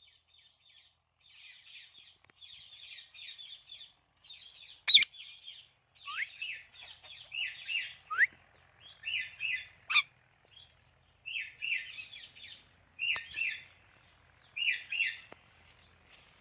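Pet parrot chirping in runs of short, quick chirps, faint at first and louder from about six seconds in, coming in bouts about every second and a half. Two sharp clicks, about five and ten seconds in, are the loudest sounds.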